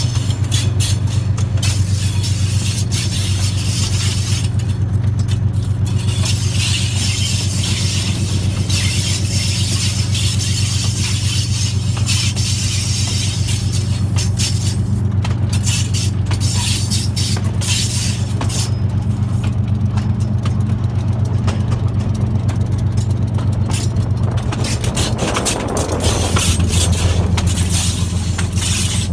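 RGE-20 diesel-electric locomotive running under way, a steady low engine drone with rattling and clicking from the running train over it. The engine note shifts about 25 seconds in.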